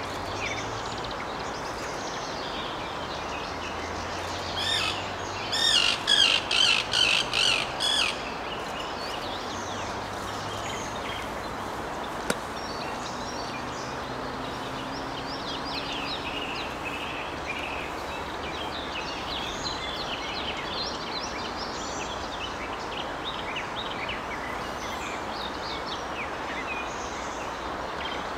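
Male common kingfisher giving alarm calls: a quick run of about eight high, sharp notes. Softer, scattered high chirps follow, over steady outdoor background noise.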